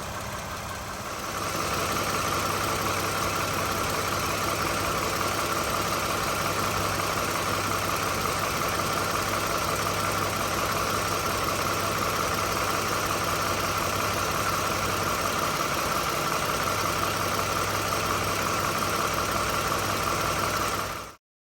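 2013 Toyota Sienna's V6 engine idling steadily with its new water pump and idler pulley fitted, free of the on-and-off bearing noise. It gets louder about a second and a half in and cuts off suddenly near the end.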